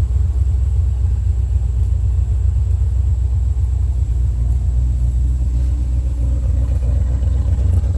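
1981 Chevy C10 pickup's engine idling: a steady low rumble with an even, fast pulse.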